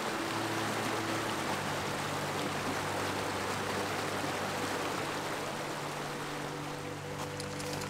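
Mountain stream rushing over rocks: a steady, even wash of water noise, with soft sustained music chords beneath it.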